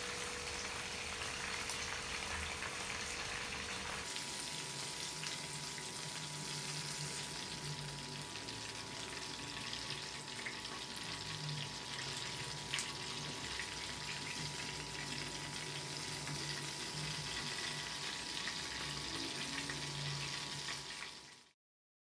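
Battered chicken pieces deep-frying in hot oil: a steady sizzle, with a faint steady hum underneath that shifts higher about four seconds in. The sizzle cuts off abruptly near the end.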